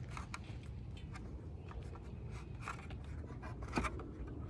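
Faint scraping and clicking of handling noise close to the microphone, over a low steady rumble.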